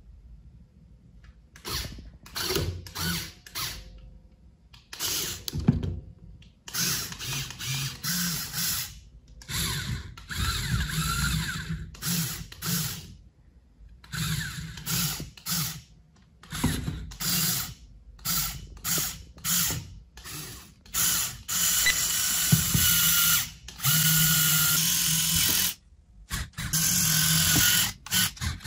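LEGO Technic electric motors and their plastic gear trains running in many short bursts that start and stop abruptly, with a few longer runs of several seconds in the second half.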